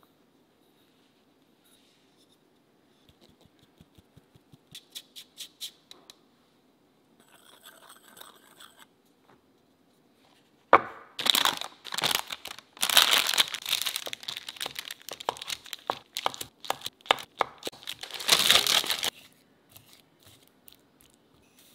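A wire whisk scraping rapidly around a glass bowl of sifted flour, dense scratchy strokes for about eight seconds in the second half. Before that comes a run of light taps, the mesh sieve being tapped and shaken to sift the flour through.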